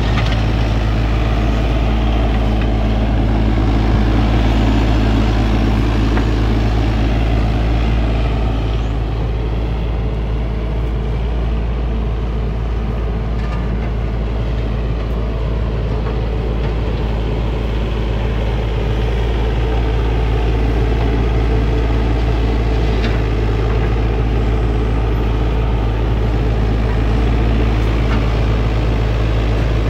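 Takeuchi TB325R mini excavator's diesel engine running at a steady pitch as the machine digs and moves soil with its bucket.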